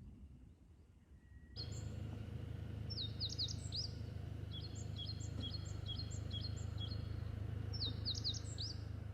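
A bird chirping in three short bursts of quick high notes over a steady low rumble of outdoor background noise, which starts suddenly about a second and a half in.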